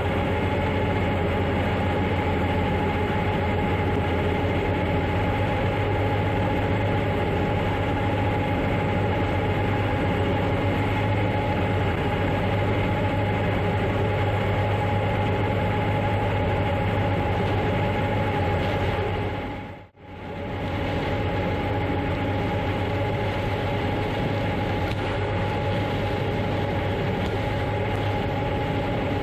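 Heavy corn-harvest machinery running steadily under load: a constant deep engine drone with a steady whine over it. It fades out briefly about two-thirds of the way through, then carries on as before.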